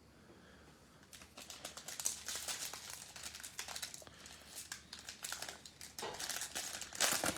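Wrapper of a Panini Playoff football card pack crinkling as it is torn open and handled. A dense crackle starts about a second in and is loudest near the end.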